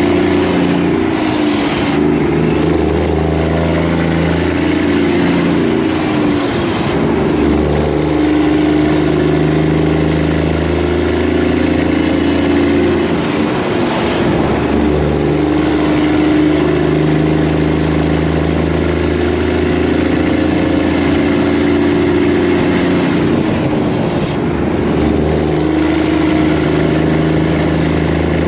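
Semi truck's diesel engine running under load as the rig pulls away, the engine note dropping out briefly and picking back up about four times as it shifts up through the gears.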